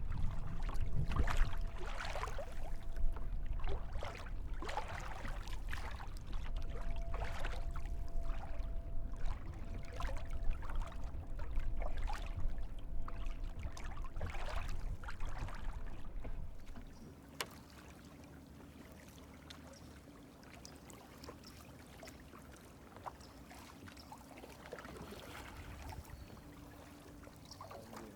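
Kayak paddle dipping and splashing about once a second, with water lapping and wind rumbling on the microphone. After about seventeen seconds the wind and splashing drop away, leaving quieter water and a faint steady hum.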